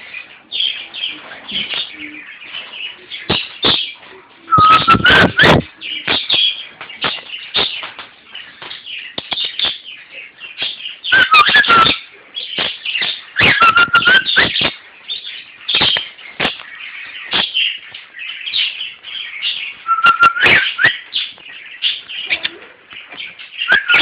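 Pet bird chirping busily, with short whistled notes in four louder outbursts spread through.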